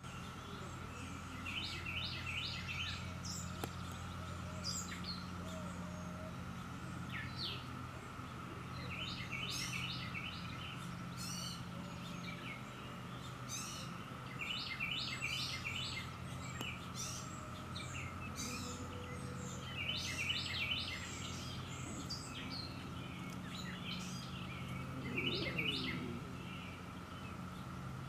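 Songbirds chirping in short, rapid runs of notes every few seconds, over a steady high-pitched drone and a low steady hum.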